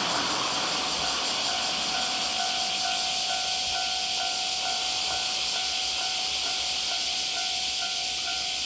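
Railway level-crossing alarm ringing over and over, its repeating tone running above a steady, loud hiss.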